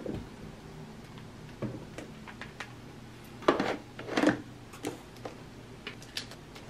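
Binders and notebooks being pushed and slid into a clear plastic desk organizer: scattered light clicks and knocks of plastic and card, with two louder scrapes a little past the middle.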